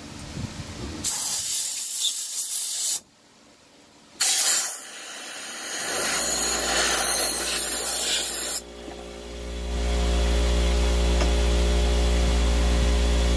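Two spells of loud hissing spray, a short one and then a longer one after a brief pause. A steady low hum starts about six seconds in, grows louder and holds.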